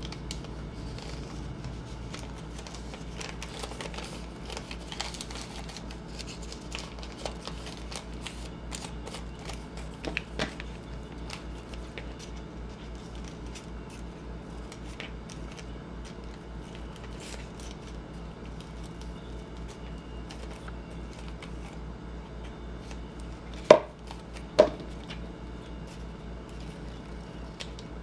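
Scissors snipping a folded paper doily, with paper rustling and small clicks throughout. Two sharp knocks about a second apart near the end, over a low steady hum.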